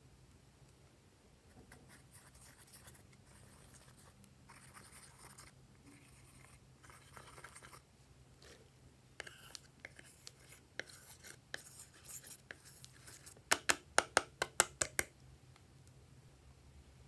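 Eyeshadow powder being scraped loose from a palette's pans, a soft dry scratching in short spells. From about halfway, sharp taps on the palette knock the loose powder off, ending in a quick run of about eight loud taps.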